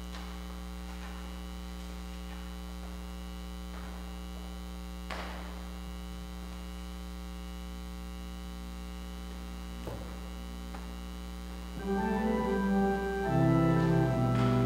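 Steady electrical mains hum with two faint knocks; about twelve seconds in, an organ starts playing sustained chords.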